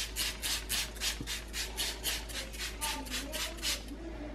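Trigger spray bottle of water misting over bread dough, the trigger pumped quickly, about four short hissing squirts a second. The spraying stops a little before the end.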